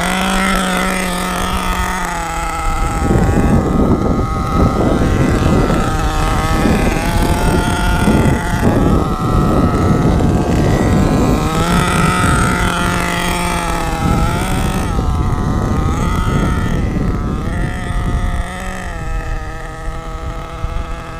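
The 4.6 cc two-stroke nitro engine of an HPI Savage X 4.6 RC truck running, its pitch rising and falling, with louder, rougher stretches. It is on its break-in tank, run gently and set rich.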